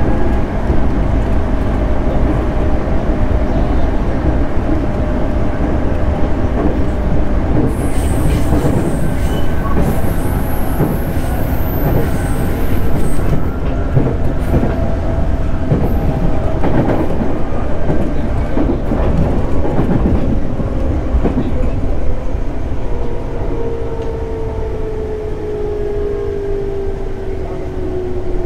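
A JR 211 series 5000 subseries electric train running, heard from inside the car: steady rolling noise with clicks from the wheels passing over rail joints. About eight seconds in, a high-pitched squeal lasts some five seconds. Over the last few seconds a whine sinks steadily in pitch and the running noise eases as the train slows.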